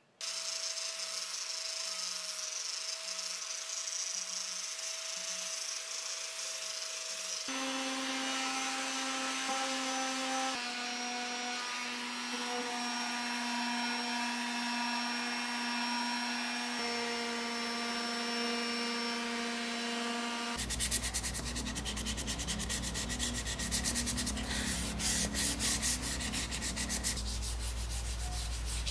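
Sanding pine wood across several cut-together clips. A random orbital sander runs with a steady whine on the wood, and from about two-thirds in there are rapid rasping strokes of sandpaper rubbed by hand over the curved legs.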